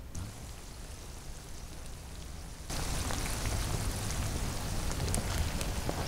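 Small freshwater shrimp deep-frying in a wok of hot oil, a steady sizzle with small crackles and pops; the sizzle jumps suddenly much louder about three seconds in.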